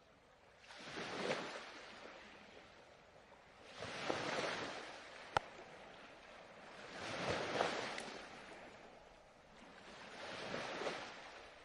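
Ocean waves washing onto a shore, four swells of surf rising and falling about every three seconds. A single short click sounds about halfway through.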